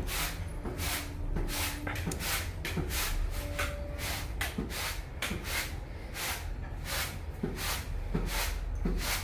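Even, scratchy rubbing strokes, about three a second, over a steady low hum, with a few faint voices in the background.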